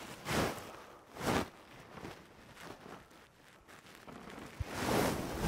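Wind rushing on the microphone in a few soft gusts, building towards the end. At the very end comes the sharp crack of a golf club striking the ball.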